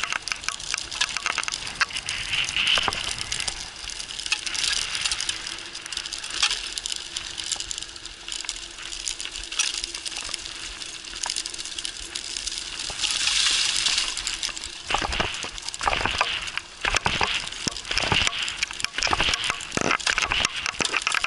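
Mountain bike riding fast on a dirt forest track: tyres crunching over gravel and dry leaves, with constant rattling and clicking from the bike over bumps. A louder hissing rush comes about two-thirds through, followed by several heavy thumps.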